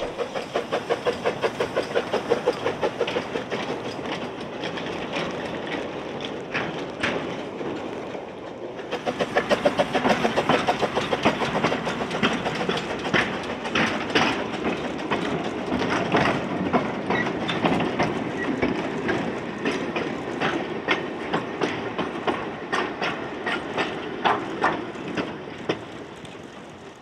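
Narrow-gauge steam train, the George England 0-4-0 saddle tank Welsh Pony working a slate and goods train: quick, even exhaust beats with wagon wheels clicking over the rail joints. It dips briefly about a third of the way in, comes back stronger, then fades away near the end.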